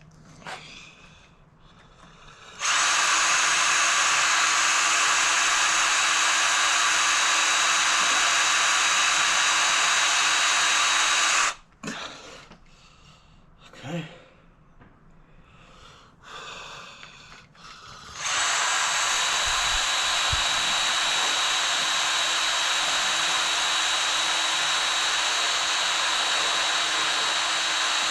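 Electric drill boring out the hinge pin screw of a Brompton folding bike, its motor running steadily with a constant whine for about nine seconds. It stops for several seconds, with a few brief faint sounds in between, then starts again and runs steadily.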